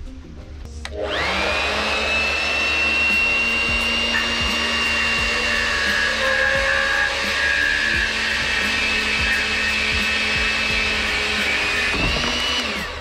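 An electric saw spins up about a second in, runs for about eleven seconds with a steady high whine as it cuts wood, then winds down near the end.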